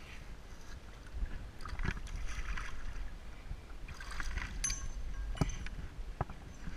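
Water sloshing and splashing in a water-filled pothole while a canyoneer in a neoprene wetsuit climbs its wet sandstone wall, gloved hands scraping and slapping on the rock. A short metallic clink comes about two-thirds of the way in, and two sharp knocks near the end.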